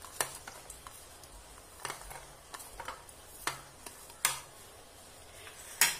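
Light clicks and small knocks of chopped green chillies, garlic and ginger being tipped by hand from a plastic plate into a plastic bowl of onion pieces. There are a few scattered taps, the sharpest about four seconds in and near the end.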